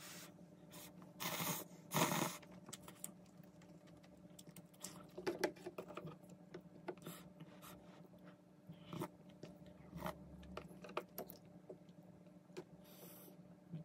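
Eating cup ramen: two loud slurps of noodles a little over a second in and at about two seconds, then chewing with scattered light clicks of wooden chopsticks and a wooden spoon against the cup.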